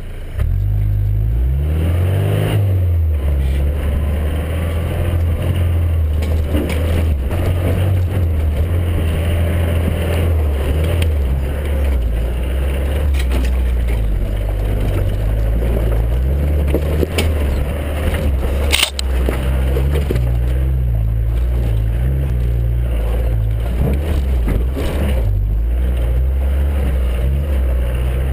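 Four-wheel drive's engine revving hard as it launches off the start line, then running under heavy load, its pitch rising and falling as it drives on. A single sharp knock about two-thirds of the way through.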